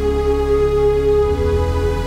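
Calm ambient background music with long held notes; the low note changes a little over halfway through.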